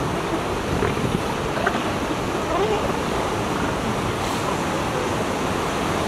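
Steady wash of ocean surf mixed with wind noise on the microphone.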